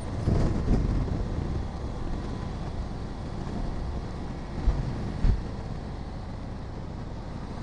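Onboard riding noise from a Honda Africa Twin: its parallel-twin engine running under load on an uphill road, mixed with wind rushing over the microphone. A couple of low thumps come about five seconds in.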